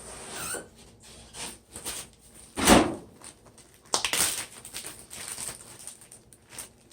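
Kitchen handling noises: a loud knock a little before the middle, then a run of small clicks, taps and rustles as things are moved about.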